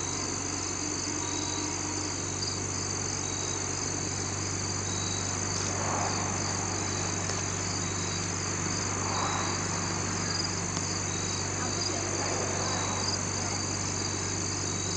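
Insects chirping in a steady, evenly repeating rhythm over a steady low hum.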